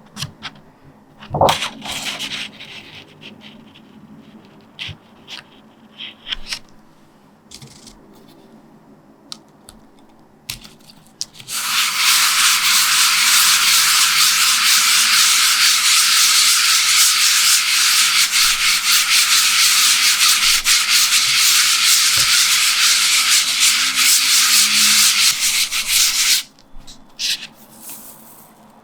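A baren rubbed steadily over the back of printmaking paper laid on an inked linoleum block, a loud, even hissing rub lasting about fifteen seconds that stops abruptly. It comes after a stretch of scattered light clicks and handling sounds.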